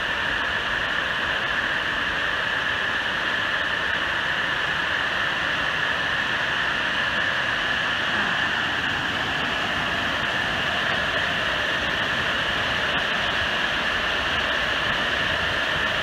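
Tinton Falls, a small waterfall spilling over a low, wide rock ledge into a pool: a steady rush of falling water.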